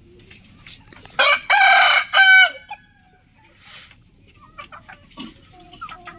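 A rooster crows once, about a second in: one loud, harsh crow in three parts lasting about a second and a half. Faint short clucks follow near the end.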